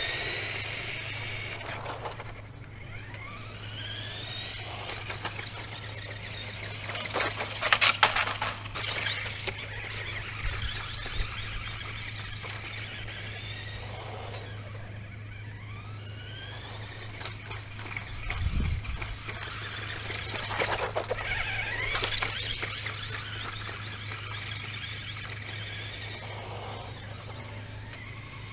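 Radio Shack Lightning R/C car's electric motor whining as it is driven, the pitch rising and falling again and again as it speeds up and slows down, over a steady low hum. A loud clattering burst comes about eight seconds in.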